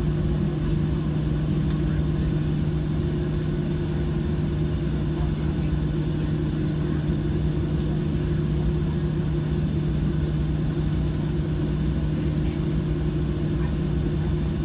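Steady cabin noise inside a Boeing 737-700 taxiing: the drone of the engines at low taxi power and the cabin air, with two constant hums over a low rumble.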